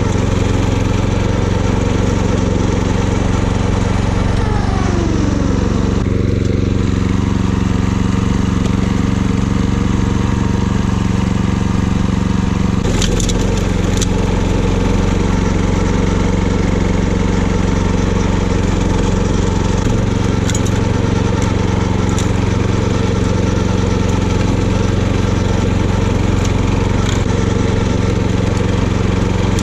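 Kyoritsu Wing Mower AZ646 walk-behind mower running steadily while its blades cut levee grass, with a pitch drop in the engine sound a few seconds in and a change in its note about halfway through. A few sharp clicks and cracks of debris struck by the blades come about halfway through and again later.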